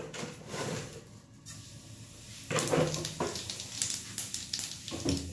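Cumin seeds tipped into hot oil in a nonstick pan, sizzling and crackling with sharp pops from about two and a half seconds in.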